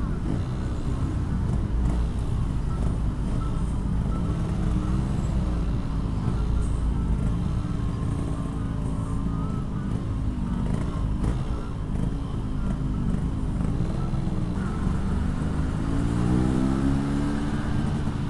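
Yamaha RX-King 135cc two-stroke single-cylinder engine through a hollowed-out Packing Power aftermarket exhaust, ridden in slow traffic: the engine note rises and falls with the throttle, climbing higher for a couple of seconds near the end.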